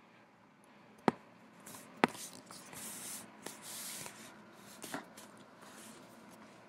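Close handling noise on the recording device: two sharp taps about a second apart, then a few seconds of rubbing and rustling, and another tap about five seconds in.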